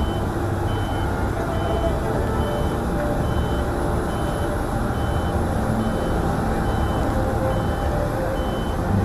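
A vehicle's reversing alarm beeping steadily, short high beeps a little faster than one a second, over a steady low background rumble and murmur.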